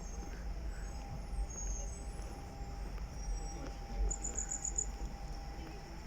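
Railway platform ambience: a low rumble and a steady hum, with a run of six quick high chirps about four seconds in.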